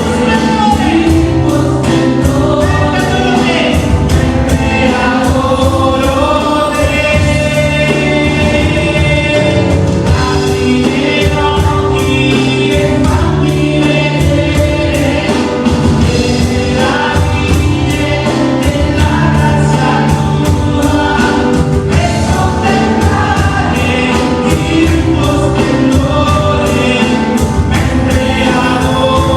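Christian worship music: a group of voices singing over a band with a steady beat and sustained bass.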